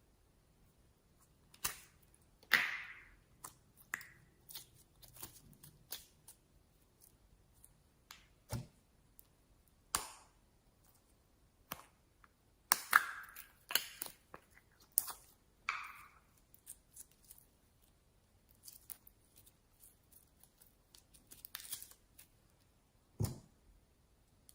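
Slime being handled and squeezed, giving irregular sticky clicks, pops and crackles, with a few louder snaps about two and a half seconds and thirteen seconds in.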